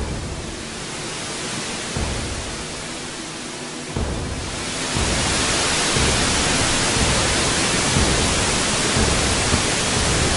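A steady hiss of noise that swells markedly about four to five seconds in and then holds loud.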